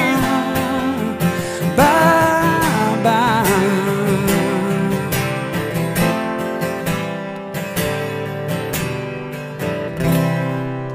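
Acoustic guitars strumming the closing bars of a country song, with a held, wavering sung note in the first few seconds. The strumming ends on a last chord near the end that rings out.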